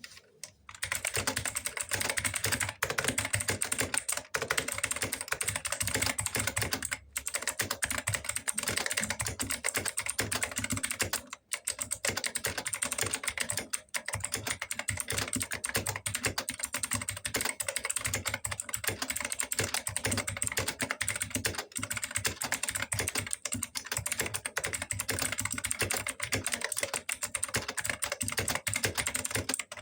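Fast, continuous typing on a mechanical keyboard with clicky blue switches, a dense run of sharp keystroke clicks starting about half a second in, broken by a few brief pauses.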